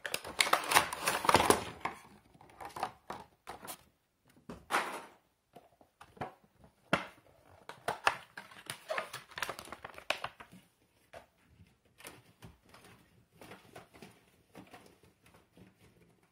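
Cardboard box and plastic packaging of a Funko Pop vinyl figure rustling and crinkling as the figure is taken out. The rustling is loudest in the first two seconds, then comes in scattered softer rustles and taps that thin out after about ten seconds.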